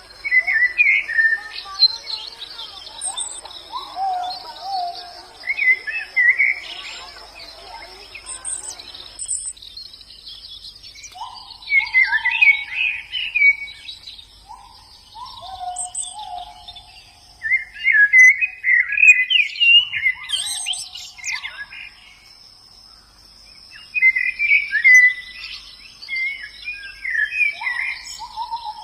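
White-eyes (pleci) singing in short, quick twittering phrases, with some lower sliding notes. A steady high thin tone runs underneath.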